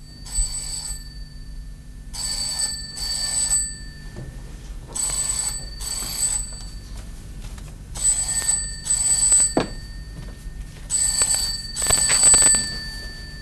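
Rotary desk telephone bell ringing in double rings: a pair of short rings about every three seconds, repeated four times after a first single ring. A single knock comes partway through.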